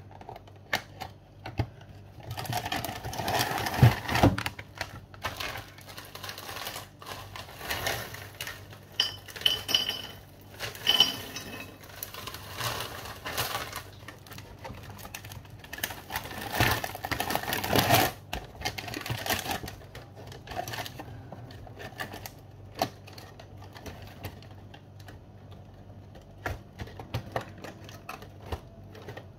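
Dry chocolate cereal pouring and rattling into a bowl, in a few spells of dense clicking over the first twenty seconds, followed by scattered clicks and knocks.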